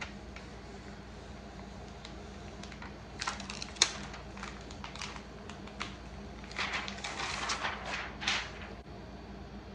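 Carrier film being peeled off a heat-pressed direct-to-film (DTF) transfer on a yard sign: crinkling plastic film with scattered clicks. It comes in two spells, about three seconds in and again around seven seconds in, with one sharp click near four seconds.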